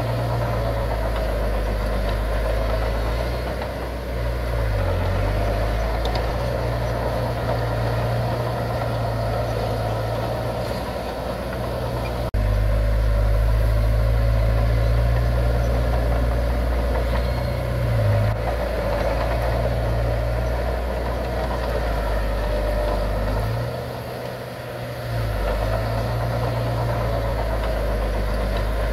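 Heavy earthmoving machinery running: a steady diesel rumble. The sound changes abruptly about twelve seconds in, and the low rumble dips briefly near the end.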